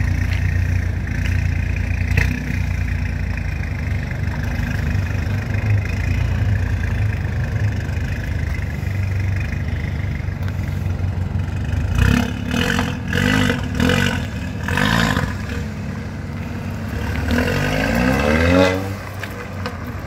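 Mercedes-AMG A45's turbocharged four-cylinder idling, with a sharp crack about two seconds in. Later it is blipped several times in quick succession, then accelerates away with a rising note that drops off suddenly near the end.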